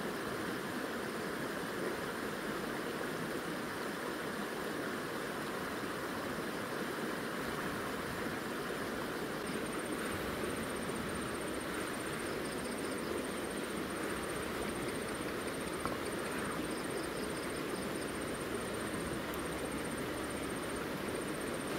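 River water rushing steadily. From about halfway through, a high, fast-pulsing chirp runs alongside it.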